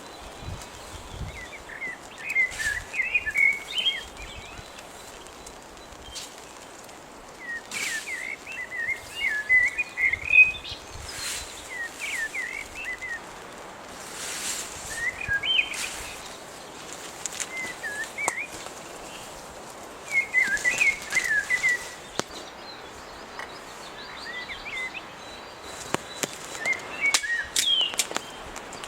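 A small bird chirping and twittering in short bouts several times over, against a steady background hiss, with a few sharp clicks or knocks in between.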